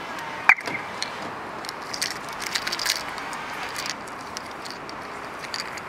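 A short chirp from the car's alarm as the key fob button is pressed, followed by light clicks and rattles from the keys hanging on the fob, over steady outdoor background noise.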